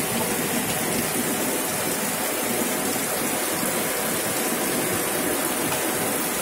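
Heavy rain pouring down steadily onto a paved road and pavement, splashing into open tubs of water, an even unbroken hiss.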